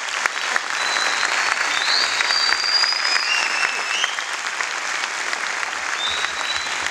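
Audience applauding steadily in an auditorium, a dense run of many hands clapping. Thin high tones glide in and out above the clapping a second or so in and again near the end.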